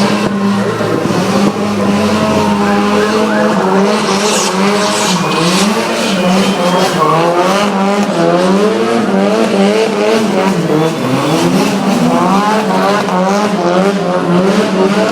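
Drift cars running hard, engines revving up and down over and over with tyre squeal, above a steady low hum.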